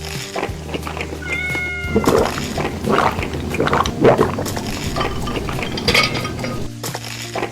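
Close-up eating sounds: repeated chewing, slurping and small clicks of utensils, over a steady low hum. A brief high-pitched cry sounds about a second and a half in.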